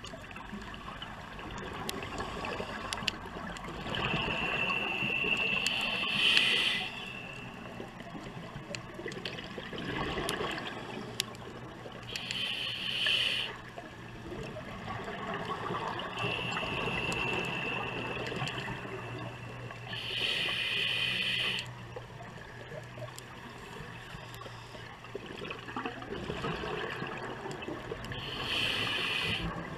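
Scuba diver breathing through a regulator underwater: a hissing breath runs into a loud rush of bubbles four times, over a steady gurgle of water.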